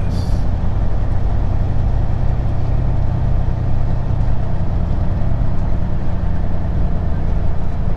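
Semi truck's diesel engine running at low speed, heard from inside the cab as a steady low drone.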